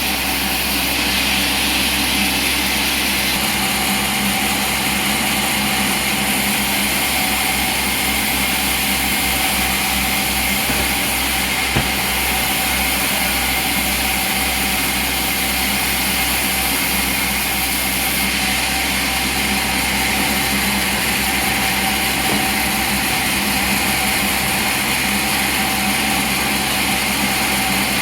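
Sawmill machinery running with a steady mechanical drone and hiss, and one short sharp click about twelve seconds in.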